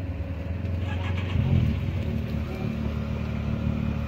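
Side-by-side UTV engine idling, with one brief rev about a second and a half in before it settles back to a steady idle.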